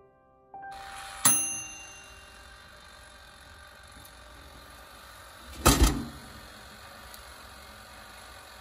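A single sharp strike that rings with several clear tones fading over about a second, then a louder double thump a few seconds later, over a faint steady hiss.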